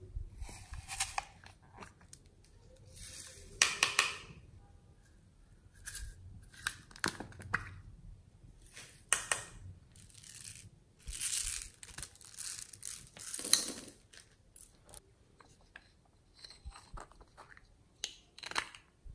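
Small plastic containers being handled and opened by hand, with irregular crinkly rustles and clicks a second or more apart.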